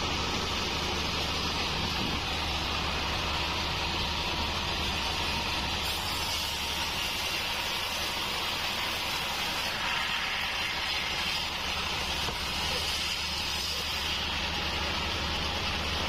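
Taiwanese bandsaw mill running steadily, a low motor hum under the hiss of the blade. About six seconds in the hiss grows brighter as the blade saws lengthwise into a wadang (bayur) log, easing off again near the end.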